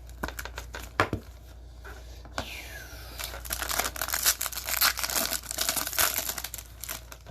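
Crinkling and rustling of plastic trading-card packaging being handled, with a few light clicks in the first seconds; it gets louder and denser from about three seconds in.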